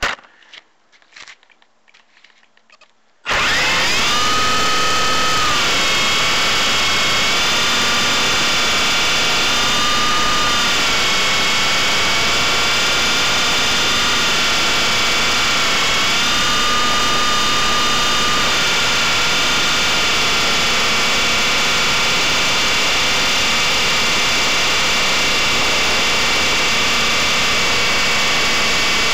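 Blade 120 SR micro RC helicopter's electric motor and rotor spooling up about three seconds in, a loud whine rising in pitch, then running steadily with small rises and falls in pitch as it flies. Heard from a keychain camera mounted on the helicopter itself.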